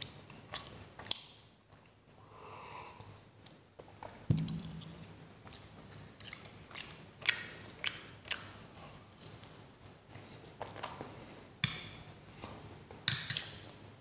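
Close-miked eating: a sip from a glass, then chewing and biting on paratha with wet mouth clicks and smacks, a dull knock about four seconds in, and the sharpest smack near the end.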